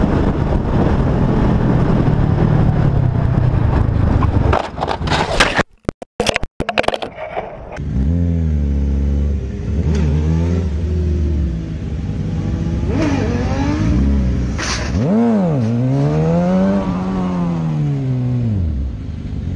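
Sport motorcycle riding at highway speed: steady wind rush over a low engine drone. After a brief dropout, a motorcycle engine revs up and down over and over in long rising and falling sweeps, with a few sharp clicks among them.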